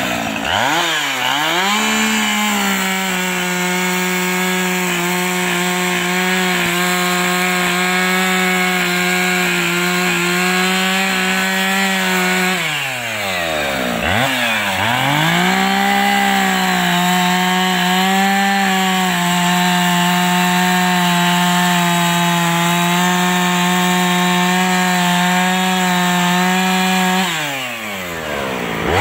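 Gas two-stroke chainsaw cutting into a wooden stump at full throttle, its engine note held steady under load. About halfway through it drops briefly toward idle, then revs back up and cuts again, easing off near the end.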